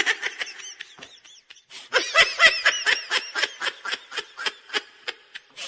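Laughter sound effect: a high-pitched laugh of quick repeated 'ha' notes, about six a second, with a short break a little over a second in.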